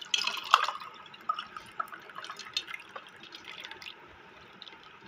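Milky rose sharbat poured from a glass jug into a stemmed glass, the liquid splashing as the glass fills, with scattered sharp clinks, most of them in the first second.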